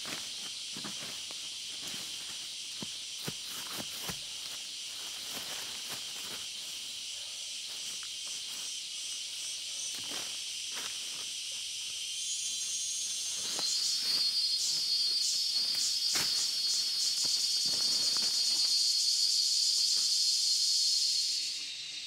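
Steady high-pitched drone of forest insects, with footsteps and rustling through leaf litter and undergrowth in the first half. About twelve seconds in, a louder pulsing insect chorus swells in, then cuts off sharply near the end.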